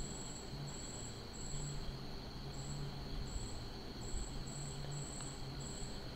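Quiet background: a faint, steady high-pitched whine over a soft hiss, with a low hum that swells and fades.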